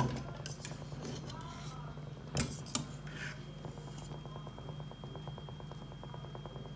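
A metal fork clinking against a stainless steel cooking pot as it turns dumplings and yam in boiling water, with a few sharp clinks in the first three seconds. A steady low hum runs underneath.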